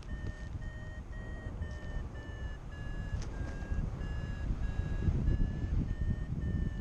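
Paragliding variometer beeping about twice a second, a short steady beep each time, which signals that the glider is climbing in lift. Wind rushes on the microphone underneath, growing slightly louder.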